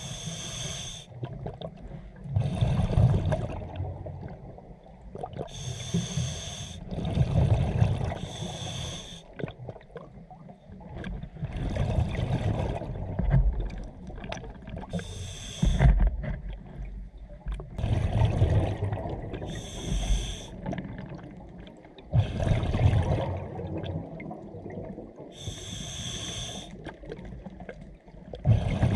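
Scuba diver breathing through a regulator, heard through the camera's underwater housing. Each breath is a hissing inhale, then a low bubbling rush as the exhaled air escapes, repeating every few seconds.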